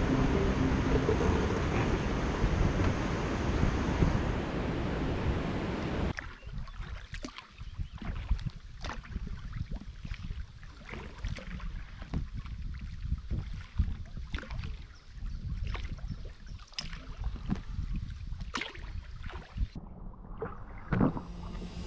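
A steady rushing noise for about the first six seconds, then kayak paddle strokes: irregular splashes and drips as the blades dip into calm river water.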